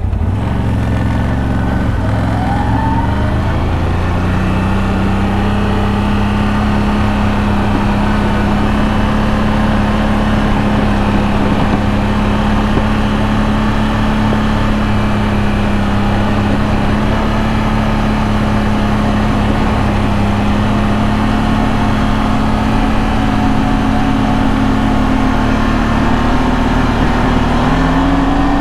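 ATV engine running under way along a trail. It picks up in pitch about two to four seconds in, holds a steady speed, then speeds up again near the end.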